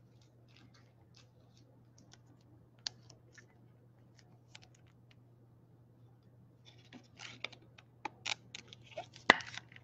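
Faint small clicks and plastic crinkles as a trading card is slid into a soft plastic sleeve, then a busier run of plastic clicks and scrapes over the last few seconds as the sleeved card is pushed into a rigid plastic top loader.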